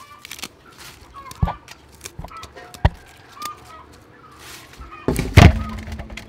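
Lettuce being handled in a metal basin: sharp knocks about one and a half and three seconds in, and a loud heavy thump about five seconds in, followed by a low hum.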